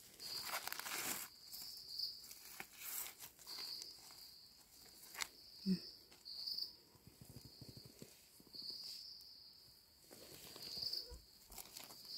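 A steady high buzz of insects, with soft rustling and scraping as wild mushrooms are handled and their stems trimmed with a knife, and a sharp click about five seconds in.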